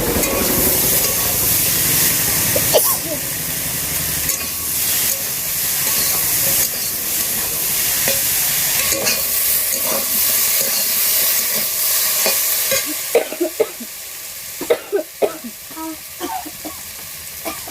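Food sizzling as it fries in a pan while it is stirred. About 13 seconds in the sizzle drops away, leaving a few sharp clinks and knocks of the utensil against the pan.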